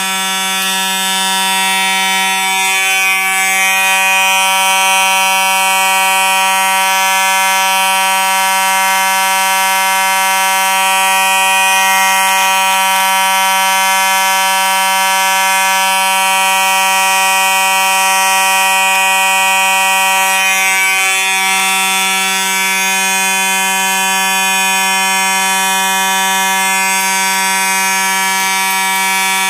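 Simplex 2901-9838 fire alarm horn sounding a steady, unbroken buzzing tone, really loud. It has been set off by pulling a Kidde B5 pull station, and it sounds continuously rather than in pulses.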